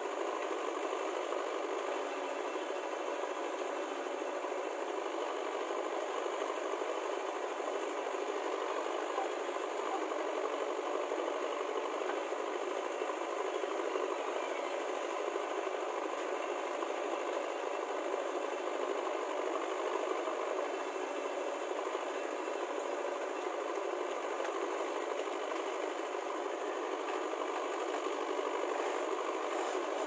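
Diesel engines of a JCB 3DX backhoe loader and a Mahindra tractor running steadily while the backhoe loads the tractor's trolley.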